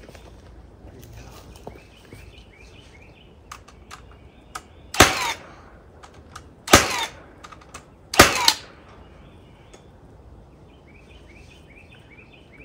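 Three loud, sharp knocks on the wooden crossbar frame over the well, about a second and a half apart, each with a short ring after it, with a few lighter taps before them. Birds chirp faintly.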